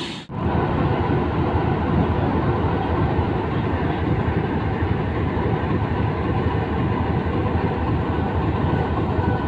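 GE C20EMP diesel-electric locomotive idling at a standstill, a steady low rumble with a faint even hum above it, after a brief gap near the start.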